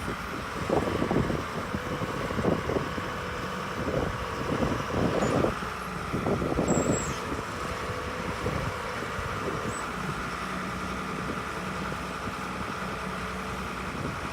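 Badger 1085C CruzAir excavator's engine running steadily, with a steady whine over the engine note. There are irregular louder bursts during the first half.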